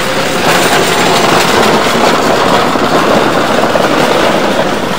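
Steady din of a busy open-air market: a dense, even noise with no single voice or machine standing out.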